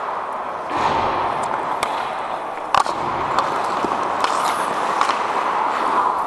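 Ice hockey play heard from on the ice: a steady scraping hiss of skates on ice, with scattered sharp clicks of sticks and puck. The loudest is a crack about three seconds in.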